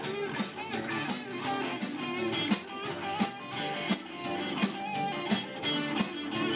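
Live rock band playing: electric guitars, keyboard and drums with a steady beat, and a tambourine shaken along.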